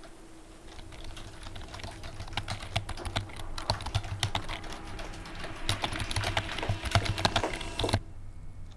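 Dense, irregular clicking that grows louder over several seconds and cuts off abruptly near the end, over a low steady hum.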